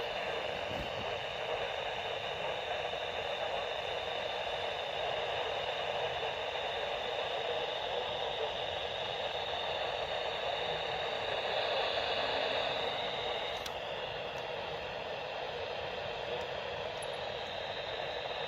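Steady radio static hissing from a receiver's speaker, with no alert tones or voice coming through, swelling slightly about two-thirds of the way through.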